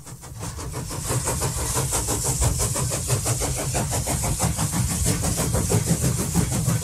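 Train sound effect: a moving train with a fast, even rhythm of several beats a second over a low rumble, fading in over the first second.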